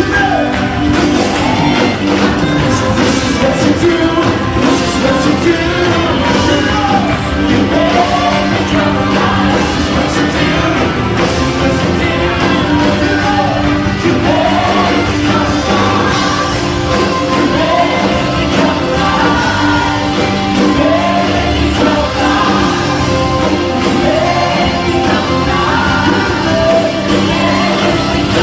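Live worship band playing a rock-style song with a singer's voice carrying the melody over the full band.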